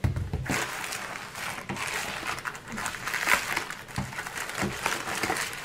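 Plastic packaging crinkling and rustling as it is handled, with sharp little crackles throughout.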